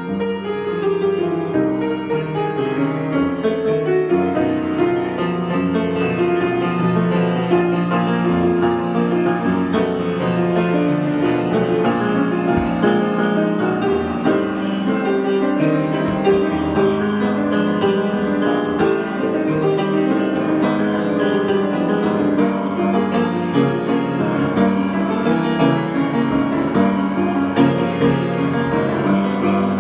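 Solo piano improvisation, played continuously with many overlapping sustained notes and chords at an even level.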